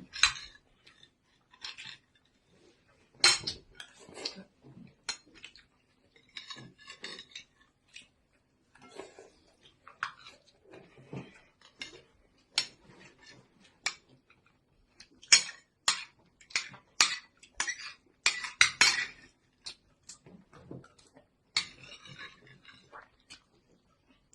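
Eating utensils clinking and scraping against dishes during a meal, in short irregular knocks, busiest a little past halfway through.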